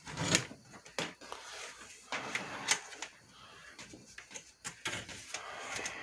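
Handling noise from a metal box fan being turned and moved about: irregular clicks, knocks and light rattles of its housing and grill. The fan is not running.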